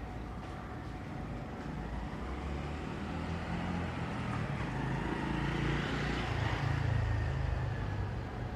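A vehicle passing close by, growing louder to a peak about six to seven seconds in and then fading.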